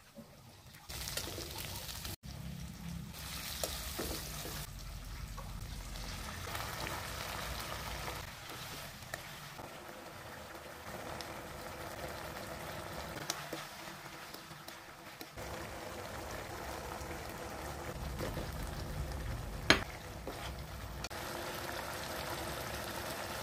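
Food sizzling in hot oil in a wok as shallots and chilies fry with potato cubes, followed by a sardine-and-potato sauce bubbling as it simmers. A single sharp knock sounds about twenty seconds in.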